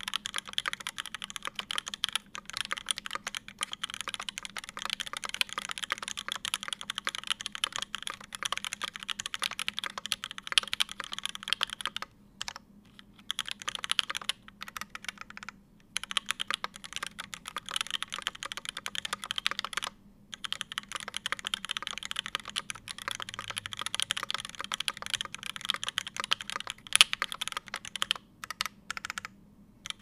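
Continuous fast typing on a Kei R2 mechanical keyboard with a brass plate and brass weight, lubed Fierce Girl switches, GMK keycaps and no foam: a dense run of key clacks, broken by a few short pauses.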